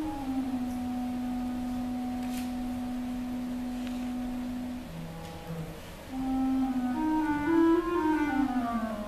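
Clarinet quartet, with clarinets and a bass clarinet, playing: a long held note for about five seconds, then from about six seconds a louder phrase that climbs and falls back down.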